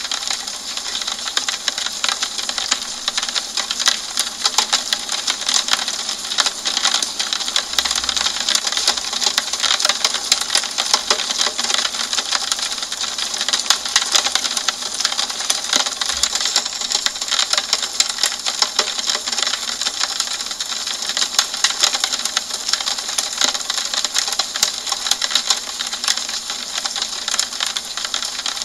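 Steady rain on a window: a dense, even stream of fine drop ticks over a hiss, with no change in strength.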